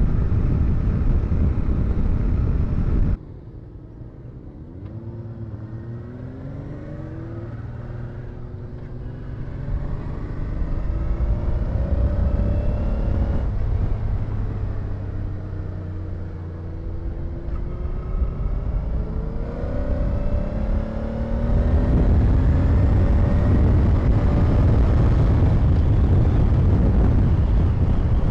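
Honda Deauville V-twin motorcycle riding along, heard from the rider's helmet with wind rumble on the microphone. The rumble drops off abruptly about three seconds in, leaving the engine note rising in several pulls through the gears, and heavy wind rumble returns over the last third.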